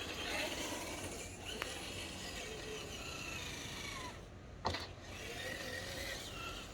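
Small electric motor and gearbox of an RC rock crawler whining as it crawls, the pitch rising and falling with the throttle, with a sharp click about two-thirds of the way through.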